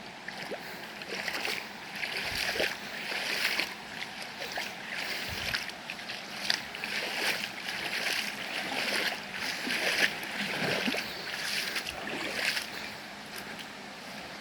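Footsteps moving along a rough trail, a regular swishing crunch with each step, about one and a half steps a second.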